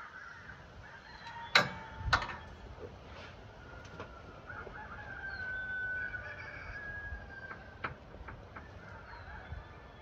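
Two sharp metallic knocks about a second and a half in, then a faint drawn-out high tone and a few light clicks, as the band sawmill's blade-tension adjuster bolt is worked loose at the idler wheel.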